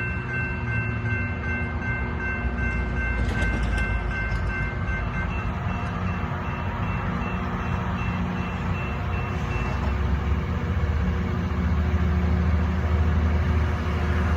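Loram rail grinder train passing, its engines making a heavy steady rumble with rising noise toward the end. A steady chord of high tones sounds over it and stops about five seconds in.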